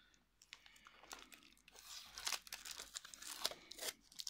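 Cardboard watch box being opened by hand, faint at first, then from about a second and a half in a run of rustling and crinkling packaging with a few small clicks as the box comes out of its sleeve.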